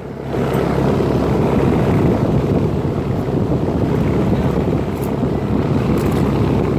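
Rheem Classic XIV 4-ton central air conditioner condenser running, its fan's discharge air blowing across the microphone as a steady rushing noise.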